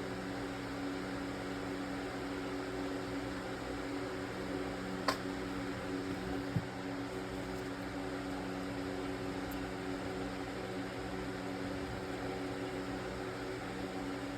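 Steady mechanical hum with a few held low tones, broken by two short sharp clicks about five seconds in and a second and a half later.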